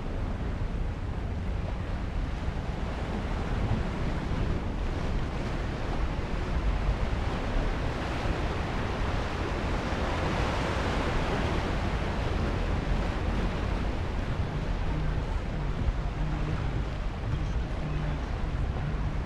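Ocean surf breaking and washing over rocks below a cliff, a steady rush that swells louder about halfway through as a bigger wave comes in. A low rumble of wind on the microphone runs underneath.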